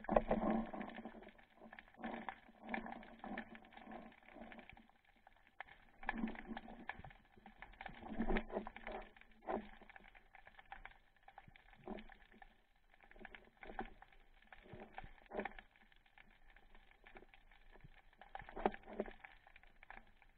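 Underwater sound through an action camera's waterproof housing: muffled swishes of water movement that swell and fade irregularly, with scattered small clicks and crackles. The loudest swells come near the start, in the middle and once more near the end.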